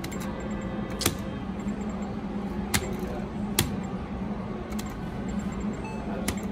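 About four sharp clicks from the buttons of a Deuces Wild video poker machine as hands are dealt and drawn, over a steady low hum and faint electronic beeps from the machine.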